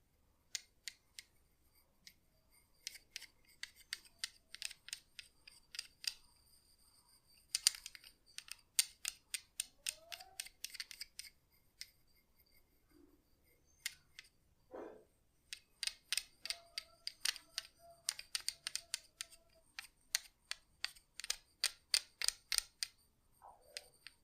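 Rapid runs of sharp clicks, several a second, coming in bursts with short pauses between them. A faint steady high whine sits underneath.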